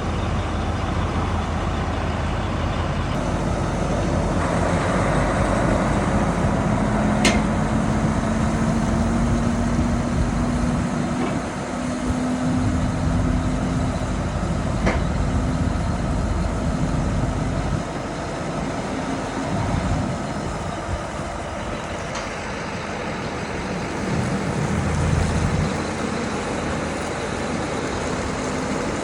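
Heavy vehicle engine running while under way, its tone slowly rising for about ten seconds in the middle, with two brief sharp clicks.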